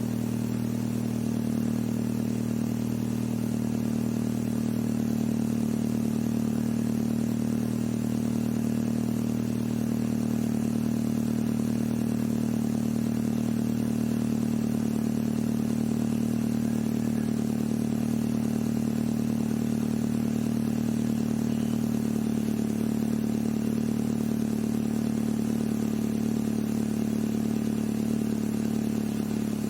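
Proton Savvy's Renault D4F four-cylinder engine idling steadily through a Spoon N1 aftermarket exhaust muffler, an even, unchanging exhaust note with no revs.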